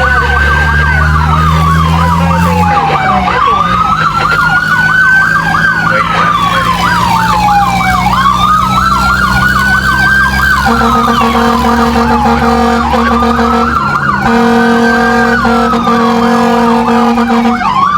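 Fire truck siren wailing, slowly rising and falling about every five seconds, with a fast yelping siren over it. A steady horn sounds twice in the second half, about three seconds each time, over the low hum of the truck's engine.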